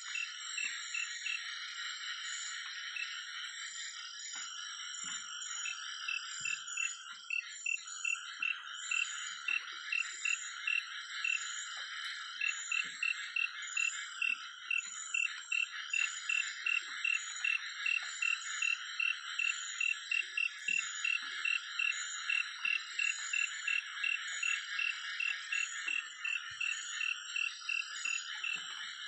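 Night chorus of frogs and insects: a dense steady trill with a higher insect buzz above it. Through it one frog-like call repeats about two to three times a second, standing out more clearly from about twelve seconds in.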